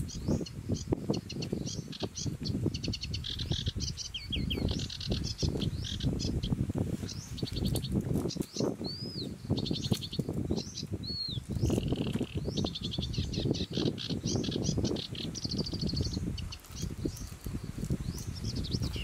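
Close rustling, clicking and crackling as roasted shellfish are handled, peeled by hand and eaten. Birds sing throughout, with many short, rapid high trills and a few whistled notes in the middle.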